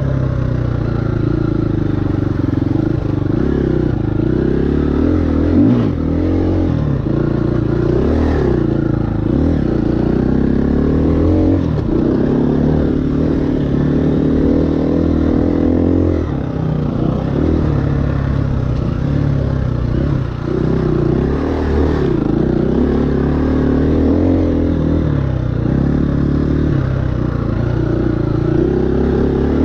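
KTM 350 EXC-F's single-cylinder four-stroke engine under riding, revving up and dropping back again and again as the throttle is opened and closed.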